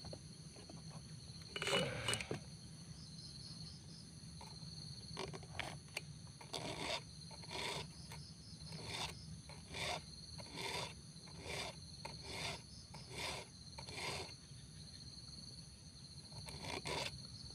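Round file rasping across the cutter teeth of a Robin chainsaw chain during hand sharpening, in short, evenly spaced strokes about one and a half a second. There is a single louder scrape about two seconds in, before the run of strokes.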